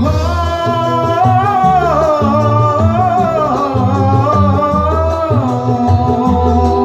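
A band playing an instrumental interlude of a slow pop-dangdut song: one long, wavering lead melody that bends up and down over pulsing bass notes and sustained chords, easing off a little after about five seconds.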